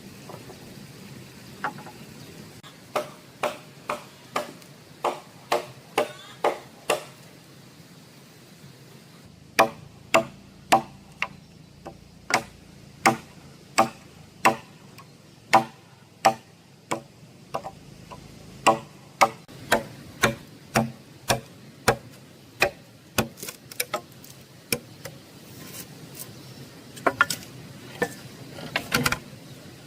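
A hand tool striking wood or bamboo again and again, like chopping or hammering: sharp blows about two a second, each with a short ring, in runs broken by a pause of a couple of seconds.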